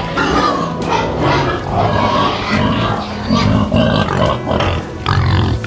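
Domestic pig grunting repeatedly, a run of short, low grunts, while rooting with its snout in soil.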